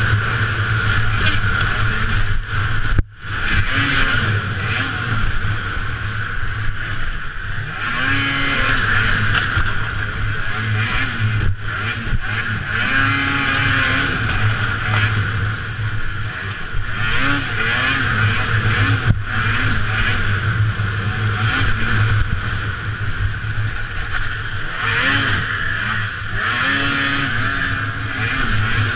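Racing snowmobile engine at high throttle, its pitch rising and falling again and again as the throttle is worked, with wind and track noise on the microphone. About three seconds in, the sound drops out for a moment.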